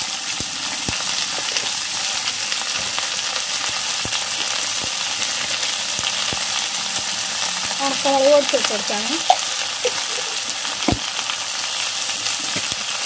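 Chopped bilimbi (orkaapuli) sizzling in hot coconut oil in an iron kadai, a steady crackling hiss with small spattering pops.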